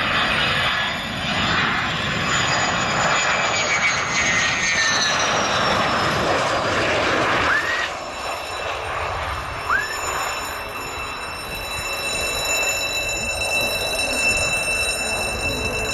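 F-16 fighter jets landing: jet engine roar with a high turbine whine that falls slowly in pitch. About halfway through it changes abruptly to a steady high whine as another F-16 flares and touches down.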